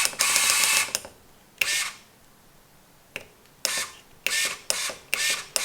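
Pinion MGU E1.12 motor-gearbox shifting gears electronically with the wheel standing still: each shift is a short motorised whir-click. The shifts come in a rapid run for about the first second, then one at a time roughly every half second.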